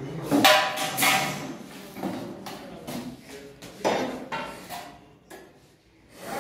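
Irregular knocks and metallic clattering, about a dozen, dying away near the end: a snake hook and a stick being prodded around a cupboard and loose chain-link mesh to find a hiding spectacled cobra.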